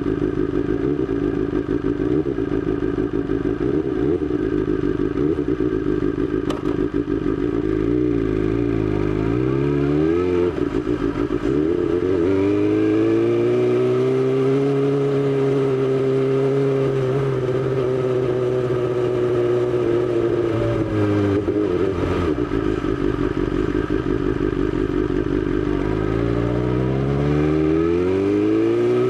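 BMW S1000XR's inline-four engine running steadily at low revs, then revving up as the bike pulls away. It holds a steady speed, eases off for a few seconds, and climbs in pitch again near the end as it accelerates.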